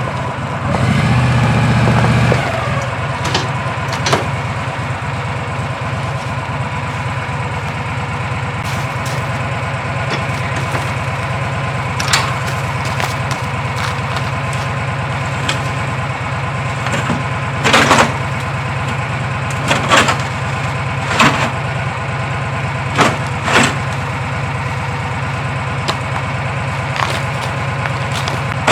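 A vehicle engine runs louder for about the first two seconds, then settles into a steady idle. Several sharp knocks or clunks sound over it, mostly in the second half.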